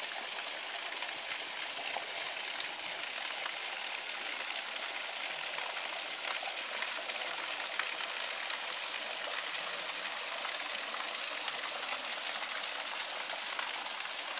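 Water of a small waterfall pouring down a rock face and splashing in shallow cascades over the rock, a steady even rush with no let-up.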